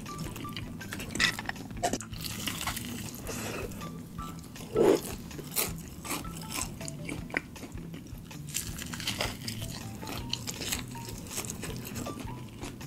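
Close-miked chewing and crunching of a crispy fried chicken drumstick, with irregular sharp crackles of the breading. There is one louder bite about five seconds in.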